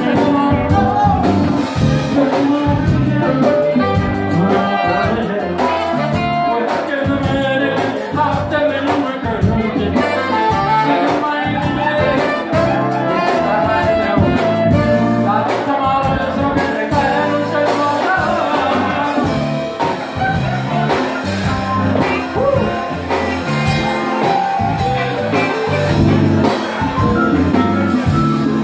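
Live band playing loud, amplified music: a male singer at the microphone over saxophones, electric guitar and bass guitar.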